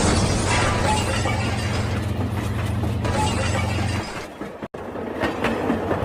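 Toy train running with a steady motor hum under a rattling, clattering noise; the hum stops about four seconds in, with a brief break in the sound just before five seconds.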